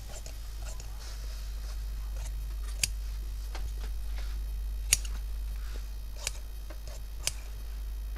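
Large steel tailor's shears cutting through cloth: a series of snips, with several sharp clicks as the blades close.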